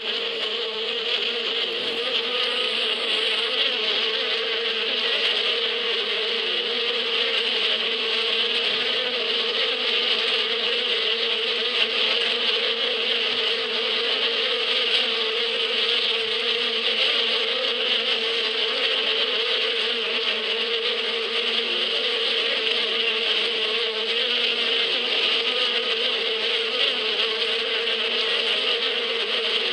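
Honeybees buzzing in a steady, even hum as they fly around and cluster on the front of a wooden hive.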